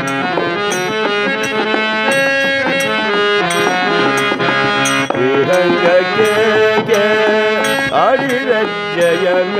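Instrumental interlude of a vachana bhajan: a harmonium plays the melody while a small hand drum and small hand cymbals keep a steady beat.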